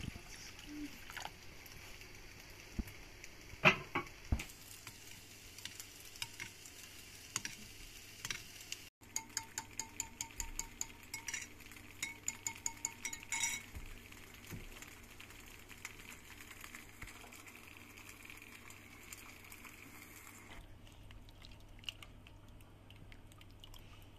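Water poured from a clay jug into a ceramic bowl, then a metal spoon stirring in the bowl and clinking against its sides in a quick run of clinks, about four a second.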